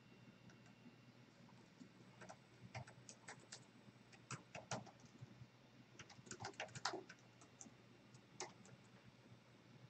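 Faint, irregular typing on a computer keyboard: scattered key clicks in short clusters.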